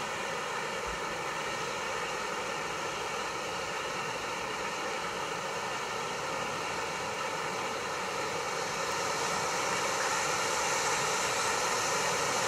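Bad Donkey Watermelon Fountain ground fountain firework spraying sparks with a steady hiss, which grows louder over the last few seconds as the spray intensifies.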